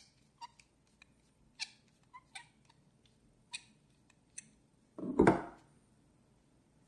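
Small, sharp clicks, about half a dozen spaced irregularly, of a tool working on the base of a Dunhill Rollagas lighter as it is unscrewed, with one louder brief sound about five seconds in.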